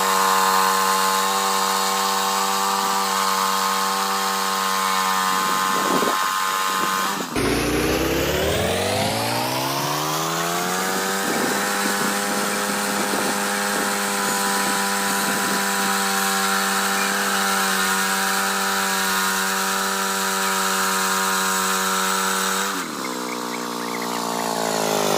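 Woodland Mills HM122 portable bandsaw mill's gas engine running at high speed, with the band blade sawing through a white cedar log. About seven seconds in the engine note drops suddenly and climbs back to full speed over a few seconds, then holds steady under the rough sawing noise of the blade in the wood, and winds down near the end.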